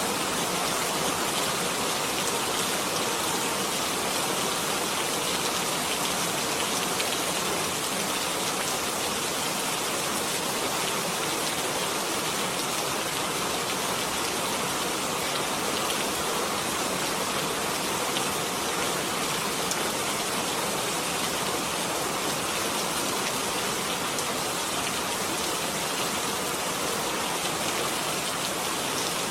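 Steady rain falling, an even hiss of many small drops hitting a surface, with no changes in strength.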